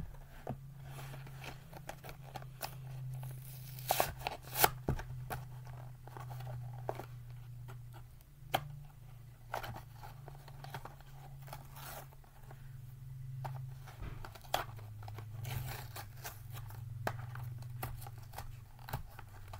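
Bakugan toy's plastic blister pack and cardboard backing being pried and torn open by hand: irregular crinkling, tearing and clicking, with a couple of louder snaps about four seconds in.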